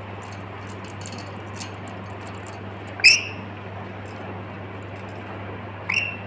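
Pet lory giving two short, sharp, rising squawks about three seconds apart, the first the louder, over the steady hum and fan noise of a room air conditioner.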